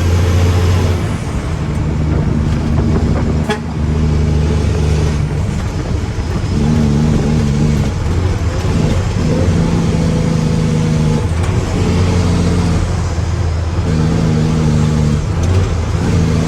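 Mack truck's diesel engine running at raised revs, the pitch stepping up and down every couple of seconds as it works through offloading a load of granite. A single sharp knock about three and a half seconds in.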